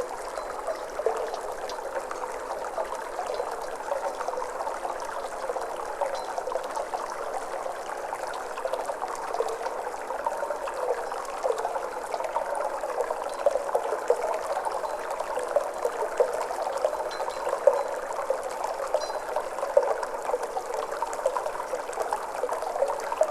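Flowing water, trickling and gurgling steadily with many small bubbling blips.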